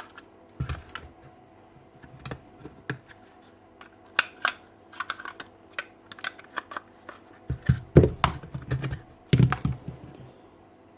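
Irregular clicks and light knocks of a Hilti TE7-A drill's opened-up motor and housing parts being handled and taken apart on a workbench, with a few heavier knocks later on.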